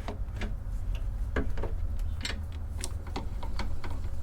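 Light, irregular clicks and taps, about a dozen, from handling at a wood lathe as the tailstock and tools are set up, over a steady low hum.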